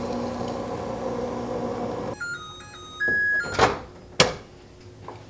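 Over-the-range microwave oven running with a steady hum, which stops about two seconds in as the cycle ends. Beeps follow, one long and loud, and then two sharp knocks as the door is opened.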